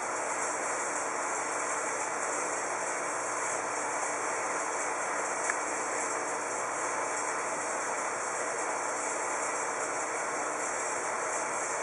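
Aquarium equipment running: a steady hiss with a faint low hum underneath.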